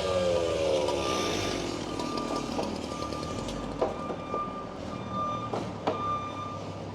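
A construction vehicle's engine drops in pitch in the first second or so, then a backup alarm beeps steadily in a regular on-off rhythm. A few sharp clanks are heard in the second half.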